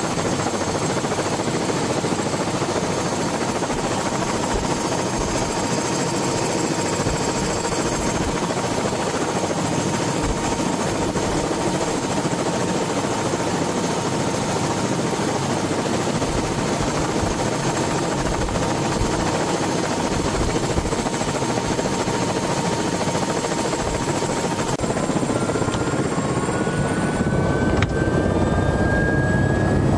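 Helicopter running with its rotor turning, heard from inside the cabin: steady engine and rotor noise with a thin whistle. Near the end the whistle gives way to a rising whine and the noise gets a little louder.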